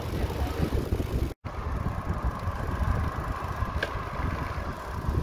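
Road and traffic noise heard while moving along a street, with uneven wind rumble on the phone's microphone. The sound cuts out for an instant about a second and a half in, and a steady hum from passing traffic sets in soon after.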